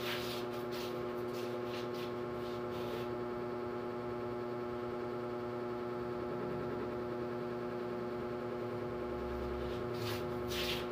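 Steady electrical hum made of several even tones, with faint scattered clicks in the first few seconds and again near the end.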